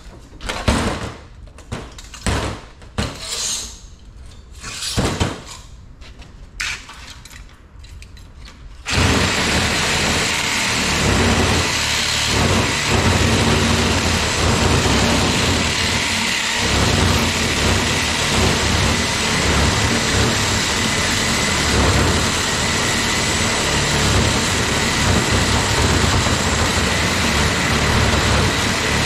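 Knocks and clatters of a copper radiator core being handled on a workbench. About nine seconds in, a reciprocating saw starts suddenly and runs steadily, cutting into the radiator.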